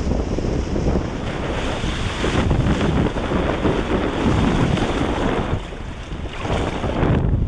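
Wind buffeting the microphone of an action camera on a windsurf rig under sail, mixed with choppy lake water splashing and rushing along the board. The gusts ease briefly about six seconds in.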